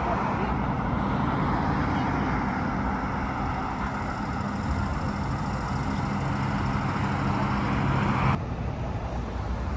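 City street traffic: a motor vehicle's engine runs nearby with a low hum over road noise. The sound drops abruptly about eight seconds in, leaving fainter traffic noise.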